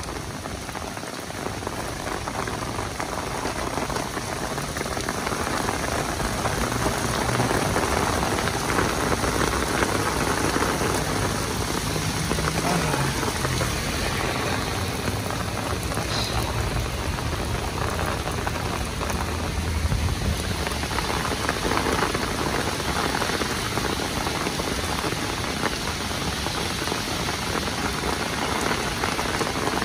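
Heavy downpour of rain falling steadily, growing a little louder several seconds in.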